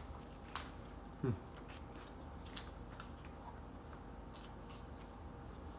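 Soft chewing and mouth sounds of someone eating chicken nuggets: small scattered clicks, with one short falling sound about a second in.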